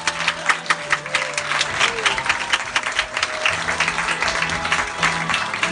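Audience and cast applauding with dense, steady clapping, over curtain-call music with held tones.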